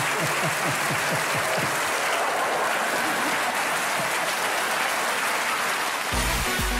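Theatre audience applauding steadily. About six seconds in, music with a heavy bass beat cuts in over it.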